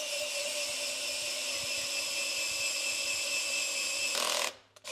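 Handheld electric drill running steadily with a steady whine as its bit cuts through a hole in a thick acrylic block. A brief louder grind about four seconds in, then the drill stops and starts again right at the end.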